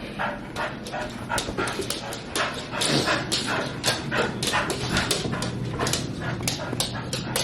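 A dog whimpering and yipping over a quick run of sharp tapping and clicking sounds.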